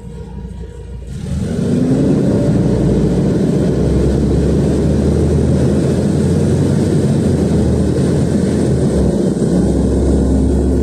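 The engine of a 2022 LiAZ 5292.67 city bus, a Weichai WP7NG280E51 running on compressed natural gas, heard from inside the cabin as the bus pulls away in traffic. The engine noise rises sharply about a second in, then stays loud and steady as the bus gets under way.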